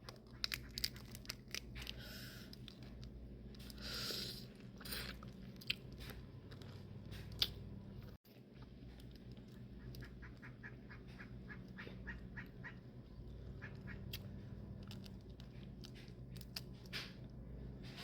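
Close-up eating of boiled crawfish: shells cracking and being peeled, with many short crackling clicks and wet chewing.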